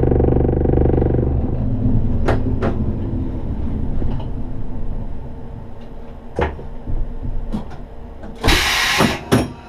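Electric rack-railway train heard from the driver's cab: the traction motors run with a steady hum that dies away about a second and a half in as the train slows to a stop. A low rumble and a few sharp clicks follow, then near the end a loud hiss of about half a second and a shorter one just after it.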